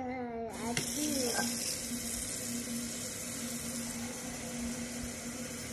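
Kitchen tap turned on about half a second in, water running steadily, with a low steady hum underneath.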